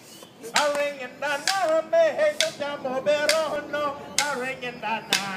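A man singing a chant, its pitch sliding up and down, accompanied by sharp percussive clacks roughly once a second, beating time for Aboriginal dancers.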